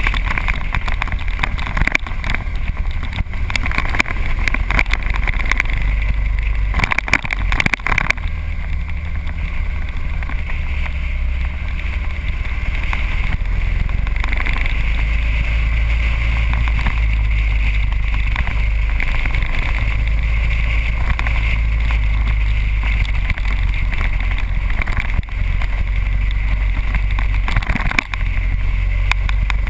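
Motorcycle riding at road speed: the engine's steady low rumble mixed with heavy wind rush on the microphone, with a burst of crackling wind buffets about seven seconds in.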